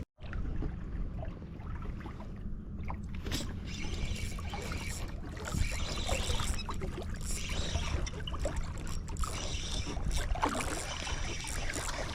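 Steady low rumble with faint trickling of water around a small fishing boat.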